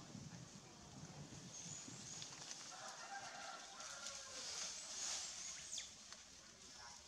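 Faint bird calls: one drawn-out call of several layered tones from about two and a half to five and a half seconds in, with thin high notes and a short high falling whistle near its end.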